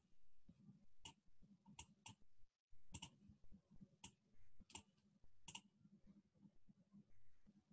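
Faint computer mouse clicks, about eight, irregularly spaced over the first five or six seconds.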